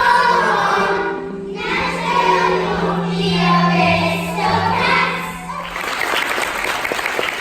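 A children's choir singing a song with musical backing, ending on a long held note about six seconds in, followed by audience applause.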